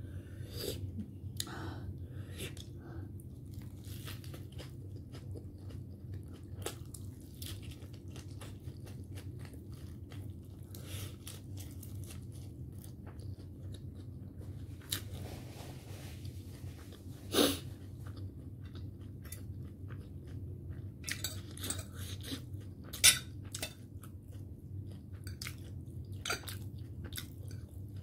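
Close-up chewing and crunching of a lettuce wrap filled with a momo dumpling and spicy ramen noodles, with many small wet mouth clicks. A steady low hum runs underneath, and two louder sharp clicks stand out about two-thirds of the way through.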